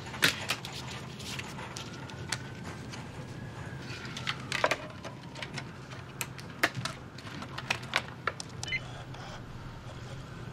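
Scattered plastic clicks and taps as a CD is handled and loaded into a laptop, with a faint whine that rises and then falls over a few seconds as the laptop's disc drive spins the disc, over a steady low hum.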